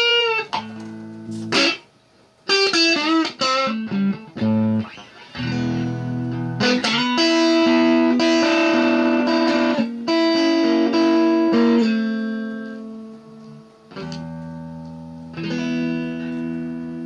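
Telecaster-style electric guitar built from a DIY kit, played through an amp: bent single notes with vibrato and quick licks, then chords left to ring out and fade, with a new chord struck near the end.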